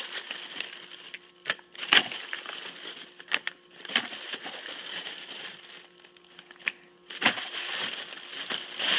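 Thin clear plastic packing bag crinkling and rustling as it is handled and pulled about, with sharp crackles every second or so.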